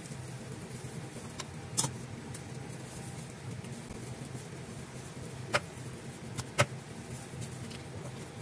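Steady low mechanical hum with a few sharp knocks of kitchen tools being handled around a wooden chopping block: one about two seconds in and two more between five and a half and six and a half seconds, the last the loudest.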